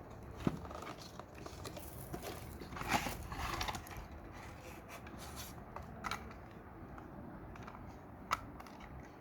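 Lamp packaging being handled and opened: scattered rustles and small clicks, a brief louder rustle about three seconds in and a sharp click near the end.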